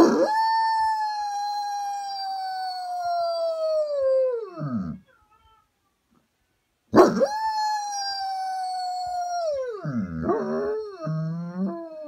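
German Shepherd howling: two long howls, each starting high and sliding slowly down in pitch, the second starting about seven seconds in, then breaking into short wavering howls near the end. The dog is howling along with husky howls played on a phone.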